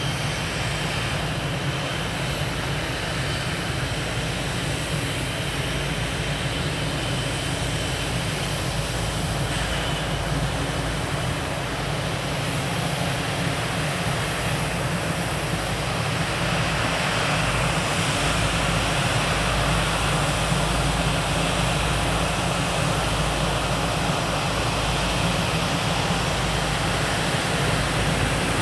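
Twin Rolls-Royce Trent 892 jet engines of a Boeing 777-300 running at taxi power: a steady rushing hum that grows louder past the middle as the aircraft turns its engines toward the listener.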